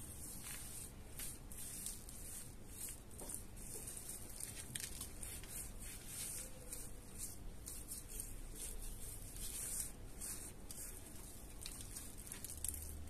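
Hands rubbing spice seasoning into a raw bone-in joint of meat: irregular soft, wet rubbing and squishing.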